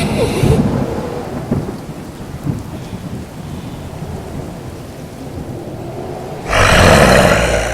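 Thunderstorm sound effect: low thunder rumbling and fading away over rain. About six and a half seconds in, a sudden loud, harsh blast cuts in and then dies away.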